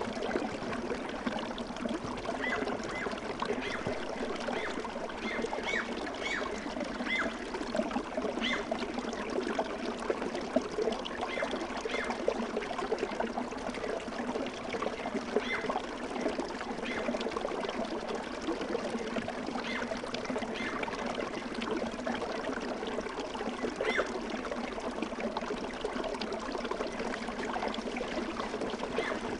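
Steady running-water ambience, like a babbling stream, with many small bubbling gurgles over an even rush.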